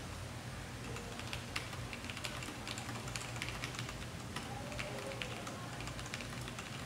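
Typing test on an IKBC Table E401 mechanical keyboard with Brown (tactile, non-clicky) switches: a run of irregular keystroke clicks, several a second, with keys bottoming out.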